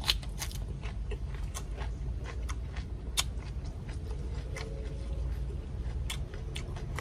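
Close-up chewing of a crunchy mouthful of raw bok choy and crispy deep-fried crocodile head, with irregular sharp crunches, the loudest just at the start and about three seconds in, over a steady low rumble.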